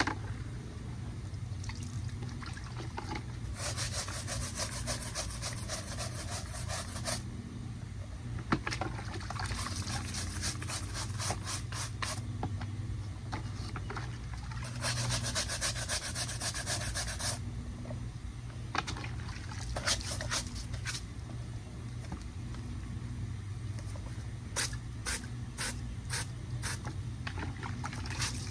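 A shoe being scrubbed clean by hand, in bouts of quick rubbing strokes a few seconds long with single strokes between, over a steady low hum.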